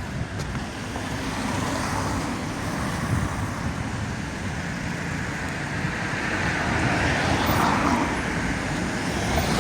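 Road traffic noise, with a vehicle passing that swells in the second half.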